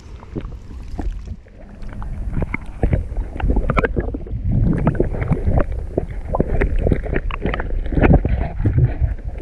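Creek water sloshing and splashing around a camera dipped underwater while a hand holds and releases a common carp: a muffled rumble with many quick knocks and gurgles, louder from about two seconds in.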